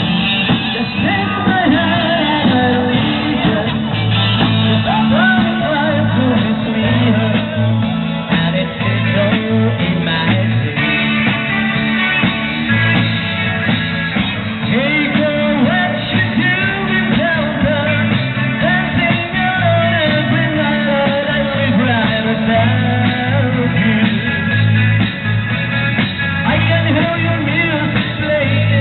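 Live rock band playing with a singer: electric guitars, bass, keyboard and drum kit under a sung lead vocal, with a steady beat throughout.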